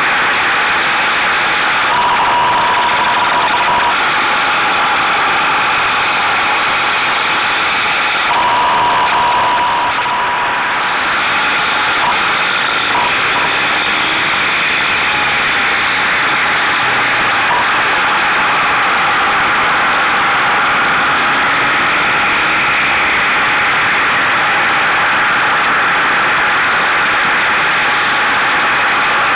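Buell motorcycle under way, heard through a camera on its mirror stalk: a loud, steady rush of wind and road noise over the engine, with faint engine tones rising and falling as the bike goes through the corners.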